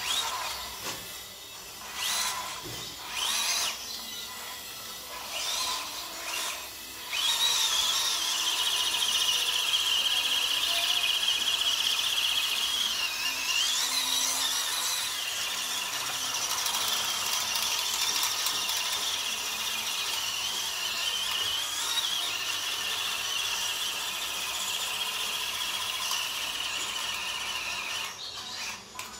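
Small electric motor and gearbox of a WPL B-1 RC military truck whining, first in short bursts of throttle, then from about seven seconds in as one long high whine that wavers in pitch while the truck drives up loose sand.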